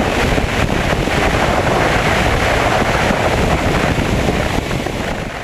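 Heavy wind buffeting on a camera mounted outside a high-wing single-engine skydiving plane, with a steady low rumble from the engine and wheels as the plane lands and rolls on a grass airstrip.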